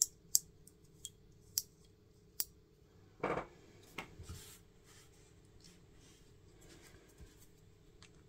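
Sheet-metal housing of a small slide potentiometer clicking as it is handled and taken apart by hand. There are five sharp metallic clicks over the first two and a half seconds, a louder scraping knock about three seconds in, and one more click a second later.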